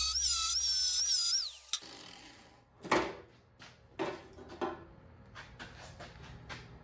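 Electronic music with wavering tones ends about two seconds in with a falling glide. A series of short, sharp knocks and scrapes follows, the sound of hand work on parts.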